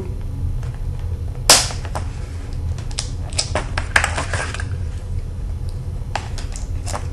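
Sharp clicks and snaps of a plastic control horn being pushed through a foam control surface and handled, over a steady low hum. The loudest click comes about a second and a half in, with a scatter of smaller ones a little later.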